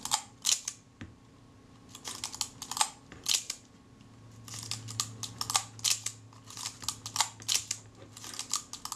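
Kodak Retina Reflex III being wound on and fired over and over: a run of sharp mechanical clicks from the film advance and shutter release, in clusters about every half second to a second.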